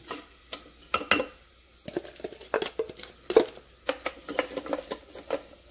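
A utensil knocking and scraping in the Instant Pot's inner pot as chopped onion is added and stirred: a run of irregular sharp clicks and knocks, the loudest about three and a half seconds in.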